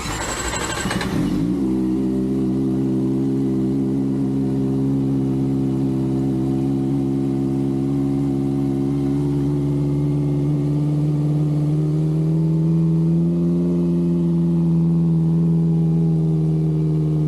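Kawasaki ZX-25R's 250 cc inline-four starting up, a short rough burst in the first second or so, then idling steadily through an aftermarket slip-on exhaust, the idle rising a little about twelve seconds in.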